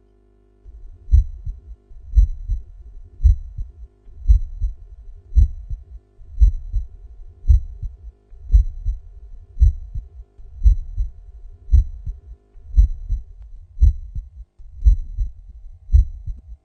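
Normal heart sounds: a steady lub-dub beating about once a second, starting just under a second in.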